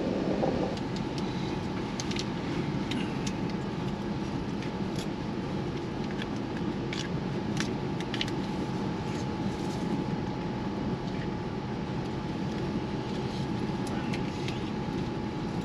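Steady rumble with a constant hum inside an air-conditioned sleeper coach of the Howrah Rajdhani Express, with scattered light clicks.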